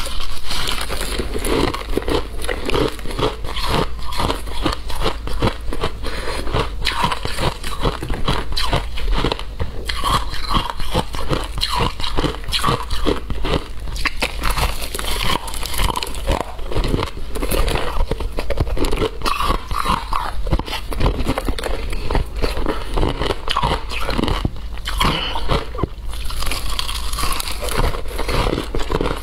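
Close-miked biting and crunching of chunks of coloured frozen shaved ice, a dense, unbroken crackle of ice breaking between the teeth.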